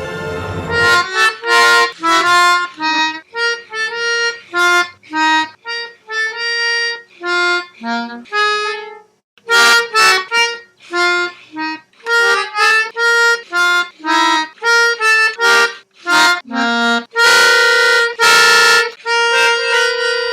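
Instrumental music: a melody of short, separate notes with a reedy sound, broken by brief pauses about nine and sixteen seconds in, and ending on a few longer, fuller notes.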